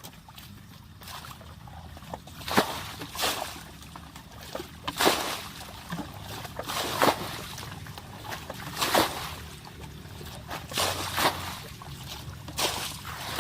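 Water splashing and sloshing in irregular bursts, about one or two a second, over a low steady hum.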